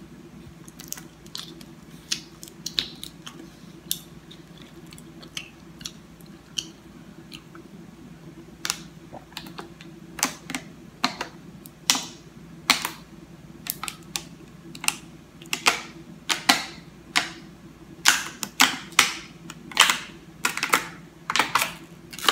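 Thin plastic water bottle crackling and popping as someone drinks from it, the sides caving in and springing back. The clicks are sparse and faint at first, then louder and about one or two a second from about halfway on.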